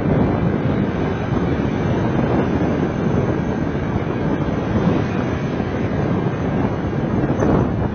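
Wind rushing over the microphone of a moving car, a loud, steady rush of noise with the car's road noise beneath it.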